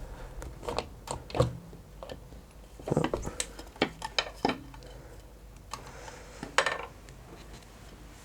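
Scattered metallic clinks and knocks at uneven intervals, a dozen or so, some briefly ringing, as the clutch cover of a Yamaha TDM900 is worked loose and lifted off the engine case.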